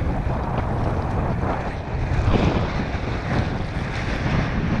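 Strong gusty wind buffeting the action camera's microphone in a steady rumble, over choppy water slapping around the kayak.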